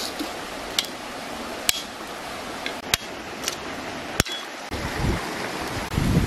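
Steady rush of a flowing stream, with about five sharp clicks of a knife blade cutting into green bamboo sticks in the first four seconds, and two low thumps near the end.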